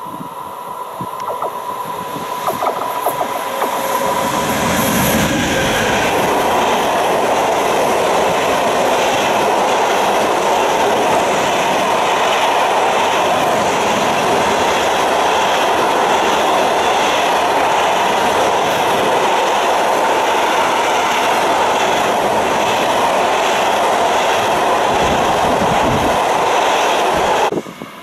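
A class 185 electric locomotive hauling a long freight train of wagons loaded with steel wire coils passes close by: the steady, loud running noise of the locomotive and wagon wheels on the rails. It builds over the first few seconds as the locomotive draws near, holds steady as the wagons roll past, and cuts off suddenly near the end.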